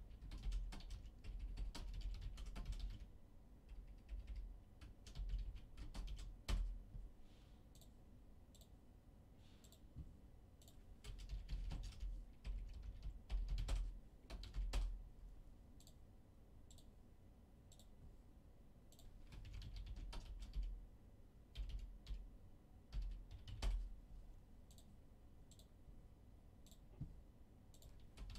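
Typing on a computer keyboard in spurts of keystrokes with short pauses between, as names are entered into a spreadsheet.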